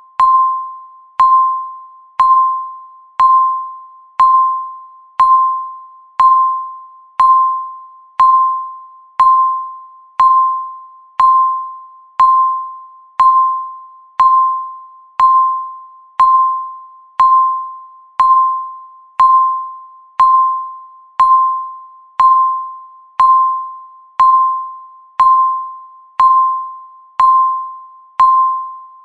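Countdown timer's electronic tick sound: a short, clear ping at one steady pitch, sounding once a second and fading quickly after each strike.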